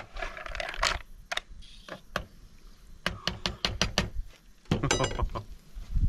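Mussels in their shells clattering in a cooking pot as they are stirred with a ladle: a quick, irregular run of clicks and knocks. About five seconds in comes a short ringing metallic clink, as the ladle and lid meet the pot.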